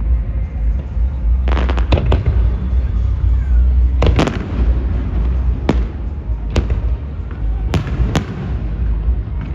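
Aerial fireworks bursting: a string of sharp bangs, a quick cluster of three about one and a half to two seconds in and single or paired reports after that, over a continuous low rumble of booming shells.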